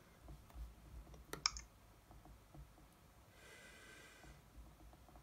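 Computer mouse button clicked once about a second and a half in: a sharp press followed quickly by the release. A faint high-pitched tone follows for about a second, over quiet room noise.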